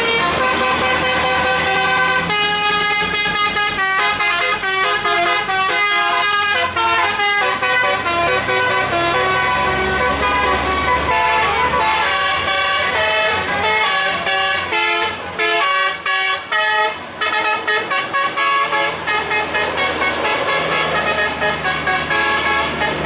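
A bus's Basuri-type telolet musical air horn playing a tune of stepped notes, with a fast run of short, clipped notes about two-thirds of the way through, over the low hum of the engine.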